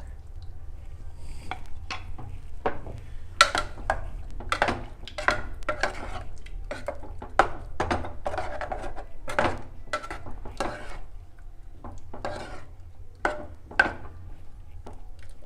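Spoon stirring smoked pork in gravy in a cooking pot, clinking and scraping against the pot in an irregular run of strokes, about one or two a second.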